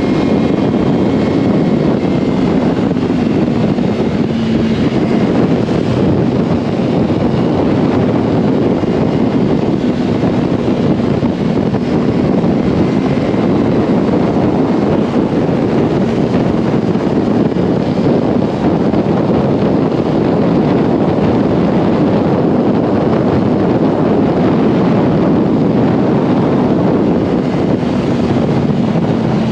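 Yamaha R1's inline-four engine running steadily while the bike is ridden, mostly buried under loud, steady wind rush on the microphone.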